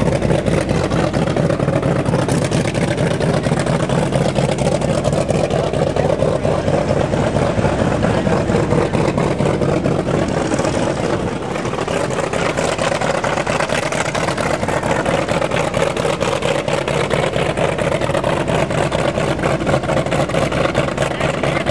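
Messerschmitt Bf 109 fighter's piston engine running steadily at idle on the ground, propeller turning.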